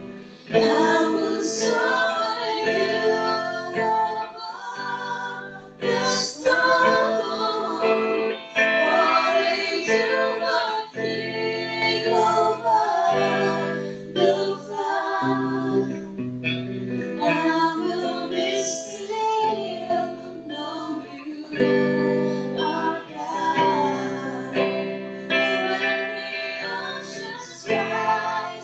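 Woman singing a worship song into a microphone, backed by electric guitar.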